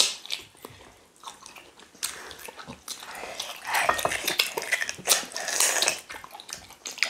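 Close-miked eating sounds: chewing and wet lip smacks of people eating soup and soft mash with their fingers, with a sharp click right at the start.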